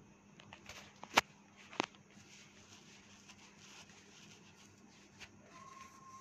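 Quiet room noise with a faint steady hum, broken by two sharp clicks about half a second apart a little over a second in. A thin, steady, high tone starts near the end.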